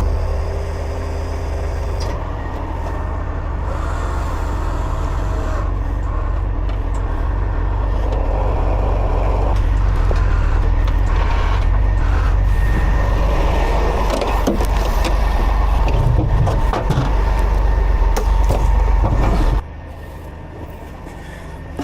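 Heavy tow truck's diesel engine running steadily with a deep rumble and some metal clatter, then dropping away abruptly near the end.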